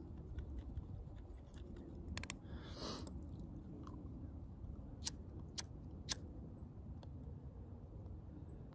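Soft scraping and crunching of a pipe tool working the tobacco in a pipe bowl, then three sharp clicks about half a second apart as the pipe is relit.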